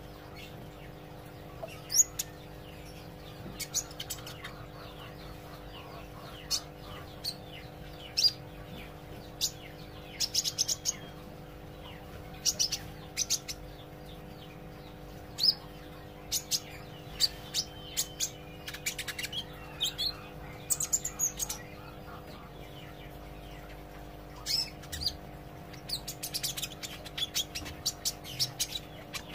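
Sunbird chirping: short, sharp high-pitched chirps at irregular intervals, sometimes in quick clusters, over a steady low hum.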